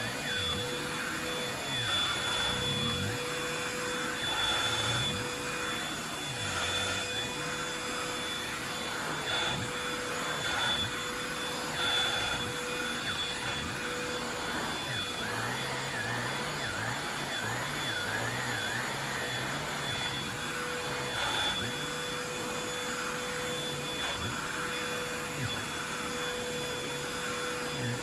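Bissell Pet Hair Eraser cordless hand vacuum running steadily, its motor whine holding a constant pitch while the suction sound shifts a little as it works.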